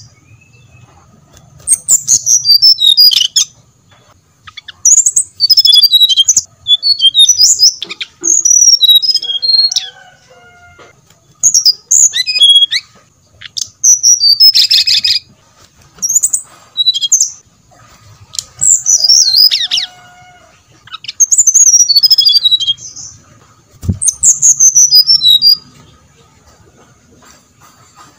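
Brown-chested jungle flycatcher singing: a string of quick, high, whistled notes that sweep downward, given in repeated phrases of one to two seconds with short pauses between them. There is one low thump near the end.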